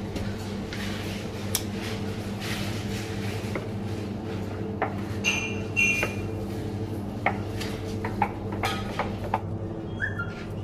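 Metal scoop scraping and knocking against a large aluminium cooking pot as cooked biryani rice is lifted out, with scattered clinks and two short ringing clinks about five seconds in. Under it runs the steady hum of commercial kitchen equipment.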